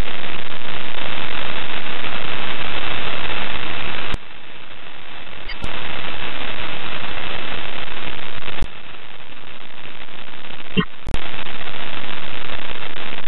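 Loud, steady static hiss from the space station's open air-to-ground radio audio channel, with no voice on it. The hiss drops sharply in level with a click about four seconds in and again past eight seconds, and each time jumps back up with a click a second or two later.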